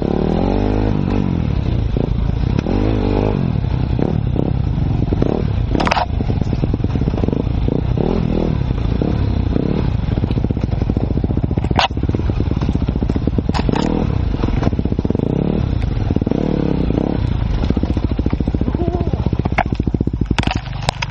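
Enduro motorcycle engine revving up and down as the bike climbs and slides along a muddy forest trail, its pitch rising and falling with the throttle. A few sharp knocks and clatters from the bike hitting ground and stones cut in now and then.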